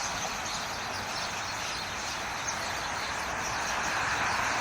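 Dense chattering chorus of hundreds of birds flocked in one tree, many short high chirps overlapping without pause, over the steady rush of road traffic.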